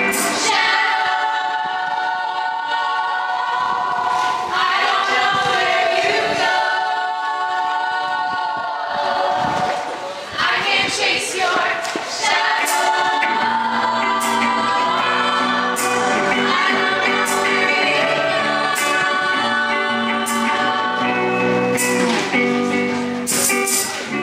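A group of girls singing a song together, several voices holding sustained notes in harmony.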